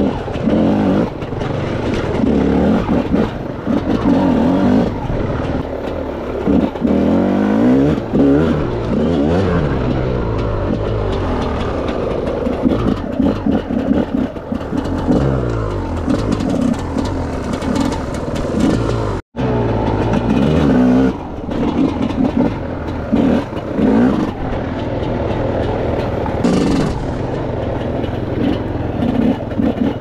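Enduro dirt bike engine being ridden hard off-road, its revs rising and falling over and over through gear changes and throttle blips. The sound cuts out for an instant about two-thirds of the way through.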